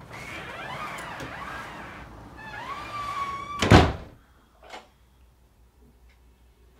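A door creaking as it moves, then shutting with a heavy thunk almost four seconds in, followed by a light click about a second later.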